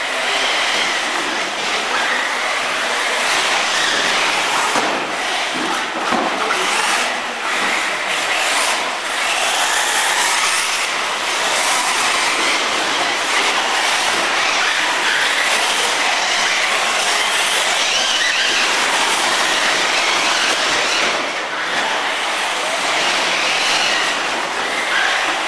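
Electric brushless 1/8-scale RC off-road buggies, among them a Bergonzoni R1, racing on a dirt track: steady motor and drivetrain noise mixed with tyres on loose dirt, running without a break.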